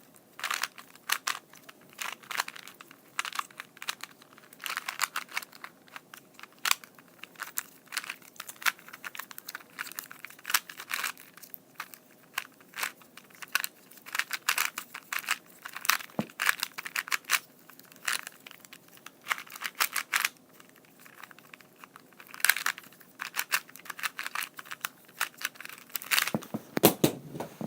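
2x2 Rubik's cube being turned quickly by hand through a solve: a fast, irregular run of plastic clicks and clacks as the layers snap round.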